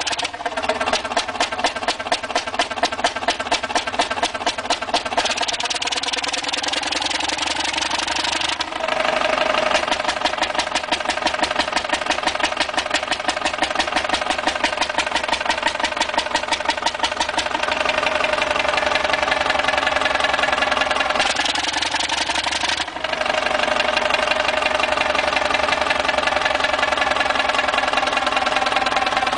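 Huge vintage four-cylinder stationary engine with a big spoked flywheel running under its own power, a rapid, even beat of firing strokes. The sound breaks off and resumes abruptly twice.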